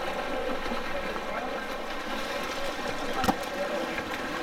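Water polo game in the pool: steady splashing water with distant, indistinct voices, and one sharp smack about three seconds in.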